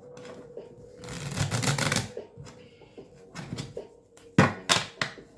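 A deck of tarot cards being shuffled by hand. A dense rustling run of cards starts about a second in and lasts about a second, and a few sharp taps and slaps of the cards come near the end.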